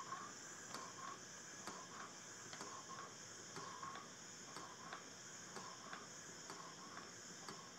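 Non-electric nebulizer running: faint, regular clicking over a steady high hiss.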